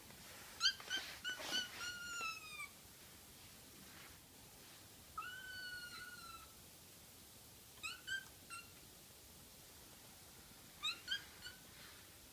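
American Shorthair kitten meowing in short, high-pitched cries: a quick run of four or five, a longer drawn-out cry, then two brief clusters of two or three.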